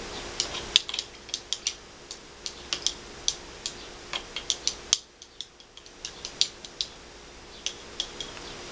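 Plastic stirrer tapping and clicking against the sides of a plastic measuring cup as liquid is stirred: sharp, irregular ticks, a few each second.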